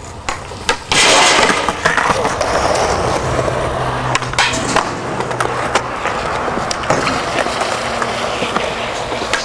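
Skateboard wheels rolling over rough concrete, a steady loud rumble that jumps up about a second in, broken by several sharp clacks of the board.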